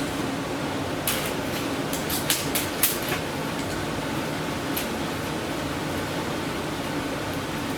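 Steady mechanical hum, with a quick run of sharp clicks and light taps about one to three seconds in and one more click near the five-second mark.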